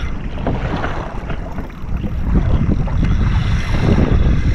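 Wind buffeting an action camera's microphone on an ocean kayak, a loud, steady low rumble that eases briefly about a second and a half in, with sea noise underneath.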